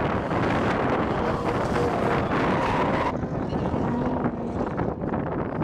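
Drift cars sliding with tyres smoking: engines revving and tyres screeching, under heavy wind noise on the microphone. About three seconds in, the sound changes abruptly and loses its highest part.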